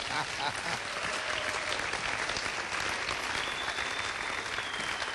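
Congregation applauding steadily, a dense patter of many hands clapping.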